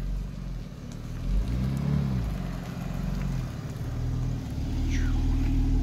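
BMW X3 M Competition's twin-turbo 3.0-litre straight-six running as the SUV rolls up at low speed and stops alongside. The engine note rises and falls once about two seconds in, then settles into a steady low idle that grows louder near the end.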